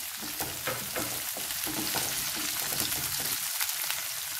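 Cubed onion, capsicum and green chillies sizzling steadily in hot oil in a kadai as they sauté, with fine crackles, stirred with a wooden spatula.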